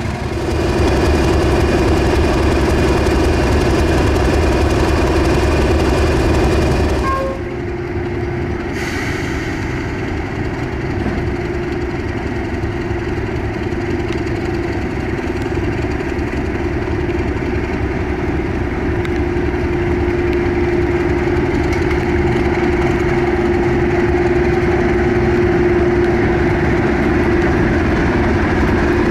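British Rail Class 31 diesel locomotive's English Electric engine running with a steady droning note. It grows louder over the second half as the locomotive draws close.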